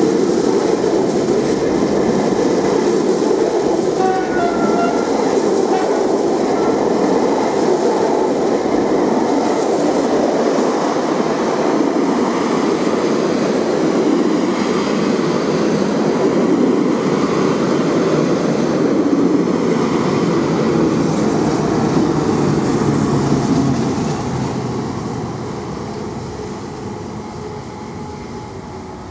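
Double-deck passenger coaches of a departing SNCF electric push-pull train rolling past at close range: a steady heavy rumble of wheels on rail. The noise fades over the last five seconds or so as the train draws away.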